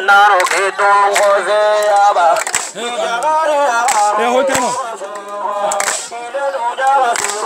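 Voices singing a wavering, ornamented melody, with sharp percussive hits about every second or so.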